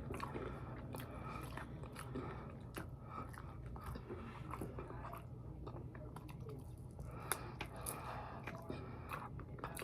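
A person eating close to the microphone: biting and chewing with irregular wet mouth clicks and small crunches.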